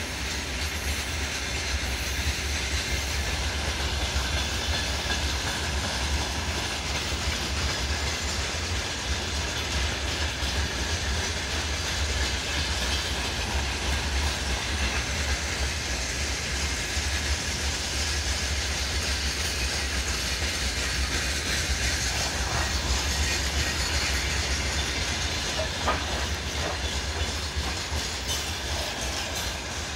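Freight train wagons rolling past on steel rails, a steady, continuous rolling noise of wheels on track.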